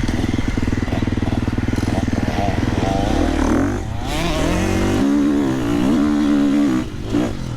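Motocross bike engine running at low revs, then revving up about three seconds in as the bike pulls away, its pitch rising and falling with the throttle.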